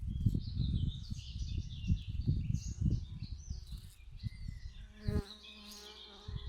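Bees buzzing while they collect nectar from flowers, the buzz fluctuating and then holding steadier for a moment about five seconds in. Birds chirp and twitter higher up throughout.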